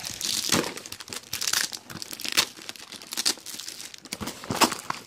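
Plastic wrapping and packing tape being crumpled and torn off a cardboard box by hand: irregular crinkling with sharp crackles and short rips.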